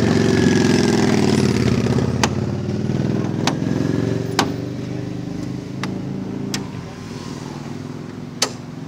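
A motor vehicle's engine running close by, loudest at first and fading away as it passes. Sharp hoof clops from the tram horse come through every second or so.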